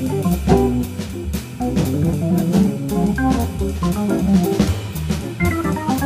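Jazz recording of a Hammond organ soloing in quick runs of short notes, over a drum kit with cymbal strokes and a low bass line.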